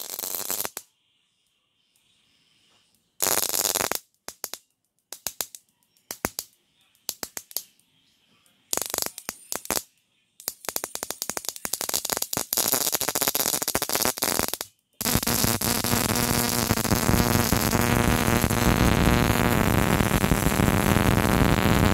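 Dual-spark ignition coil firing on a bench coil tester, sparks crackling across the test gaps. It comes first in short irregular bursts, then runs continuously with a steady hum under it for the last several seconds. The coil is putting out spark, so it tests good.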